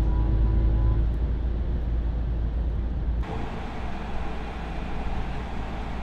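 Mercedes-AMG EQS 53 electric car driving: a low rumble of road and tyre noise with faint steady synthetic drive-sound tones. About three seconds in the sound changes abruptly to less rumble and more hiss.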